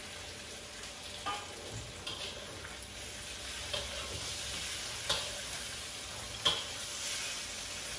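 Fried eggs, potato and onion sizzling in oil in a steel wok, with a steady hiss. A metal spatula stirs them, scraping and knocking against the wok a few times.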